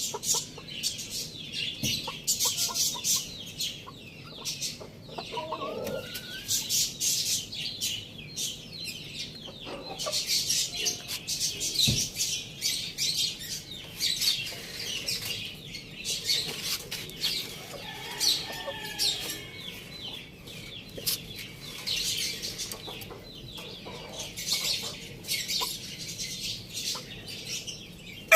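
Domestic chickens, a hen and a rooster, clucking a few times while pecking at food, with many quick light ticks throughout.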